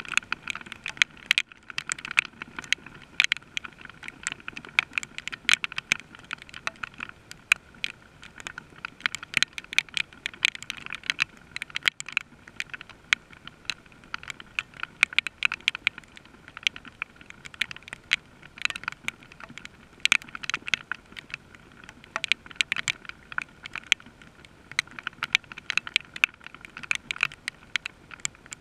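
Steady rain with drops striking a hard surface close to the microphone: many irregular, sharp ticks, several a second, over a faint hiss.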